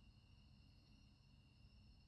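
Near silence: a faint low rumble with a few steady, thin high tones.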